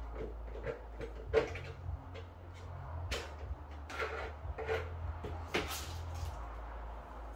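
Irregular knocks and clacks of hard objects being handled and set down, about ten of them, the sharpest about a second and a half in, over a low steady hum.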